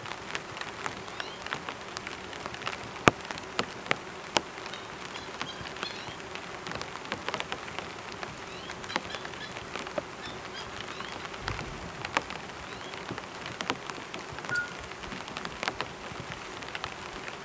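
Rain falling steadily on a tarp shelter, with scattered sharp drop strikes standing out above the steady patter. A faint, steady hum runs underneath.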